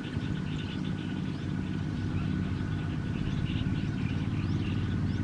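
Single-cylinder diesel engine of a two-wheel walking tractor running steadily as it pulls a trailer loaded with rice sacks, growing gradually louder as it comes closer.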